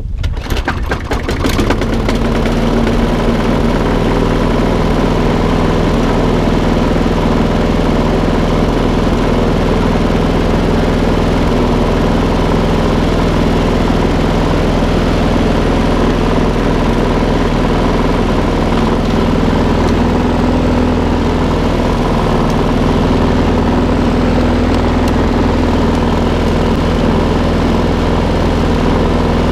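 Petrol lawnmower engine, started unprimed, catching on the pull-start in the first second or two, then settling into a steady, even run.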